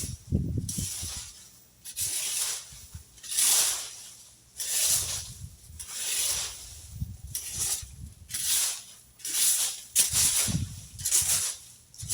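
A rake scraping and rustling through dry leaves and yard debris in repeated strokes, roughly one stroke a second.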